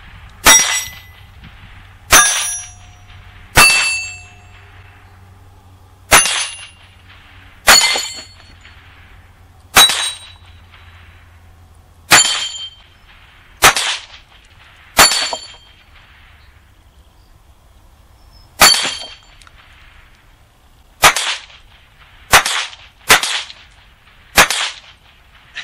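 Rossi RS22 semi-automatic .22 LR rifle firing about fourteen single shots at an irregular pace, one every one to two and a half seconds. Each crack has a short metallic ringing tail, typical of bullets striking steel plates.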